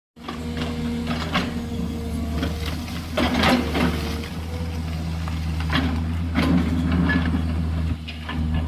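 JCB 210LC excavator's diesel engine running steadily under load, with several clanks and scrapes of the bucket working into gravel, the loudest about three and a half seconds in.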